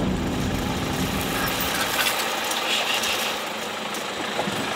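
Pickup truck engine running as the truck drives slowly past on a dirt track, with a steady hiss of tyres and air; the low engine rumble fades about halfway through.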